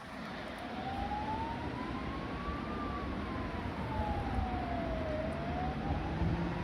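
Emergency-vehicle siren in a slow wail, rising for about two and a half seconds, falling for about two and a half, then starting to rise again, over the steady noise and low rumble of city traffic.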